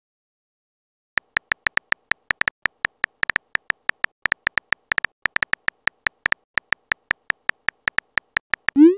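Keyboard sound effect of a texting-story app: a rapid run of short, identical clicking beeps, one per letter typed, starting about a second in. A short rising swoop comes near the end.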